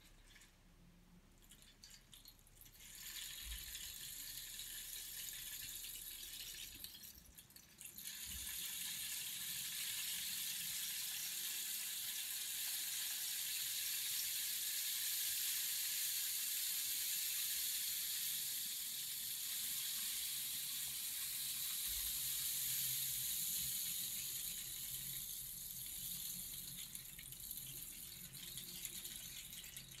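Rainstick being tipped, its fill trickling down inside as a steady high hiss like falling rain. A shorter pour starts about three seconds in and breaks off briefly near seven seconds as the stick is turned, then a long pour follows that slowly fades near the end.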